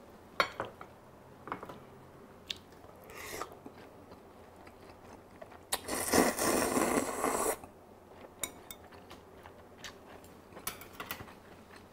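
A person slurping up a mouthful of spicy bibim-myeon noodles in one long pull of about two seconds, halfway through, with a few light clicks and chewing around it.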